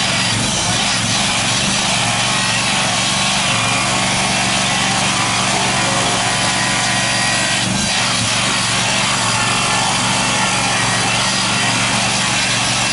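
Hydraulic rail profile grinder grinding the rail head, the finishing stage that dresses an aluminothermic weld: a steady abrasive grinding noise with a low hum underneath.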